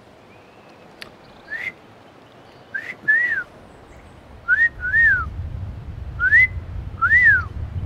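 A repeated two-note whistled animal call, a short rising note followed by a note that rises and falls, about every one and a half seconds. A low rumble joins about halfway through.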